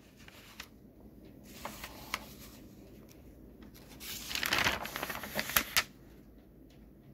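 Paper pages of a thick bound book being turned: a few light ticks, then a louder rustle of pages flipping about four seconds in, ending in a couple of sharp flicks.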